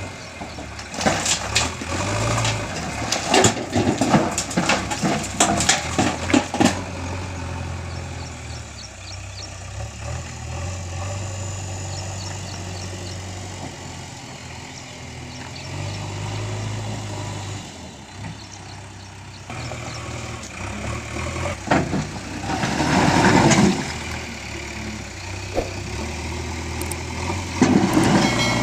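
JCB backhoe loader's diesel engine running steadily, with a run of sharp clattering knocks for several seconds near the start and the engine swelling louder about three-quarters of the way through.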